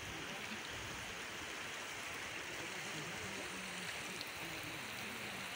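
Shallow river rushing over rocks, a steady, even hiss of flowing water.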